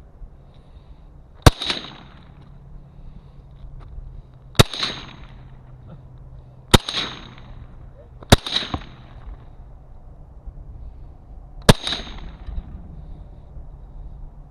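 FN PS90 carbine firing five single shots, spaced a couple of seconds or more apart, each followed by a brief ring.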